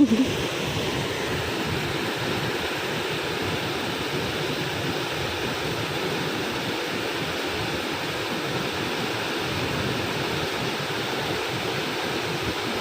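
Waterfall in a flash flood, the swollen water rushing steadily.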